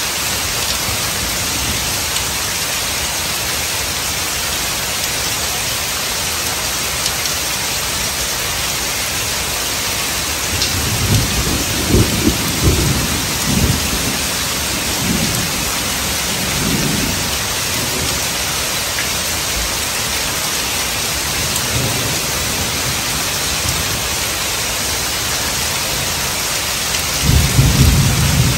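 Heavy rain falling steadily on pavement and puddles. Low rolling thunder rumbles through it from about ten seconds in for several seconds, and again near the end.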